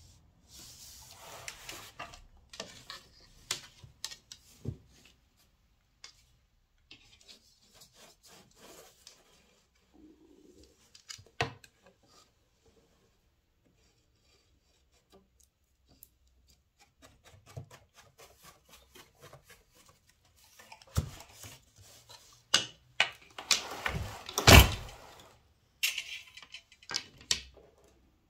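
A wooden floor loom worked by hand: yarn rubbing and drawing through the warp, with scattered wooden clicks and knocks. The loudest knocks come in a cluster about three quarters of the way in.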